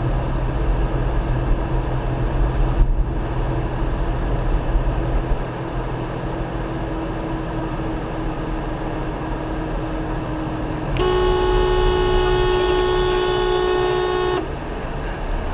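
Steady tyre and road noise inside a moving car. About eleven seconds in, a vehicle horn sounds, held steadily for about three and a half seconds, then cuts off.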